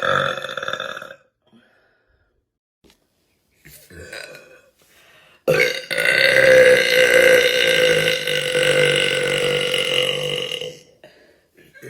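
A woman burping over a voice chat: the end of one burp fades out about a second in, and about halfway through comes a single loud, long burp held at a steady pitch for about five seconds.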